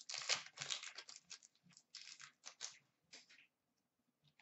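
A trading-card pack wrapper being torn and crinkled by hand, with a quick run of short rustles that thins out after about three seconds.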